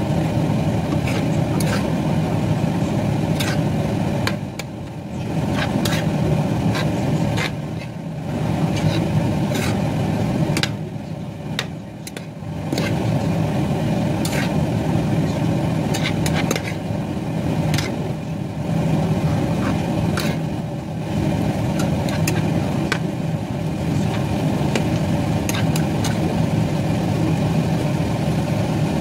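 A metal spoon clicking and scraping against a nonstick frying pan as broccoli is stir-fried, with many short sharp clicks over a steady low hum.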